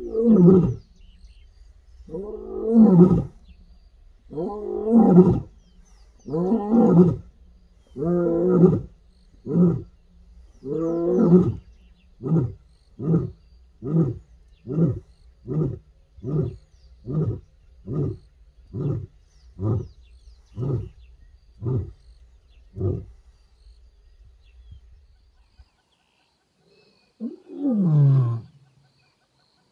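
Lioness roaring, a full roaring bout. It opens with about six long, gravelly moaning calls about every two seconds, each falling in pitch, then gives way to a string of about a dozen short grunts, roughly one a second, that die away. A new moaning call begins near the end.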